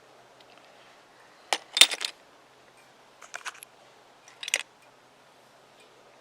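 Small hard objects being handled: three short clusters of sharp clicks and light clatters, the loudest about a second and a half in, then two fainter ones about three and a half and four and a half seconds in.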